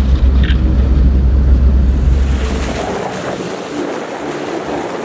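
Wind buffeting the microphone by the sea: a heavy low rumble that cuts off about three seconds in, leaving the wash of the sea and open air.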